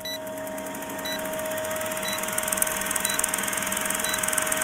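Old film-leader countdown sound effect: a film projector's fast, steady mechanical clatter with a short high beep once a second as the numbers count down.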